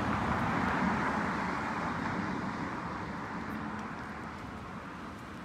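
Road traffic noise: a vehicle going by, its sound fading away steadily.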